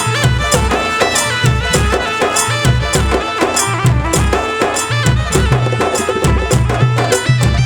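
Instrumental interlude of a devotional bhajan: a melody instrument plays a stepping tune over a steady, regular drum beat with sharp percussion strokes.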